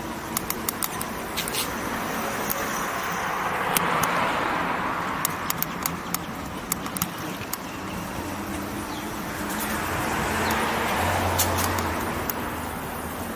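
Road and traffic noise heard from a moving e-bike on a city street, swelling twice as vehicles pass, with scattered sharp clicks.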